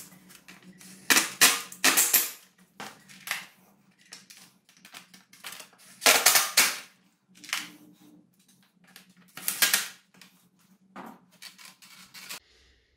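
Irregular sharp clicks and knocks of hand tools and parts being handled during motorcycle assembly, about a dozen in clusters, over a low steady hum that stops abruptly near the end.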